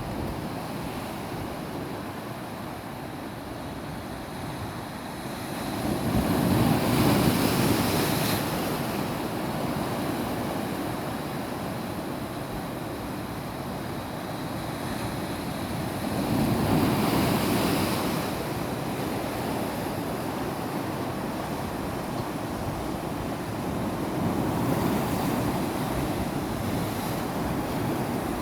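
Sea waves washing over rocks and rock pools, a steady surf wash that swells three times as waves break, about ten seconds apart.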